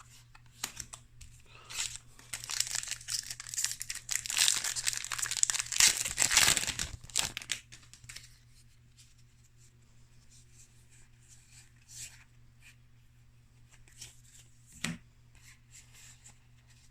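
Foil wrapper of a Magic: The Gathering booster pack being torn open and crinkled for about five seconds, followed by faint ticks of cards being handled and a single click near the end.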